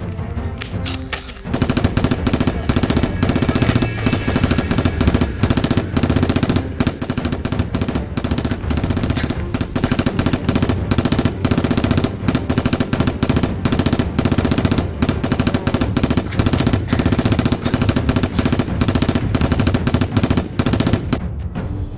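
Sustained rapid automatic gunfire, a dense run of sharp cracks that starts about a second and a half in and stops just before the end, with music underneath.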